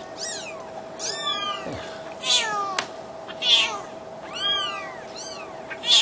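Newborn kittens crying with many short, high-pitched mews that rise and fall in pitch as they are picked up, and an adult cat hissing in a few short bursts, the loudest near the end.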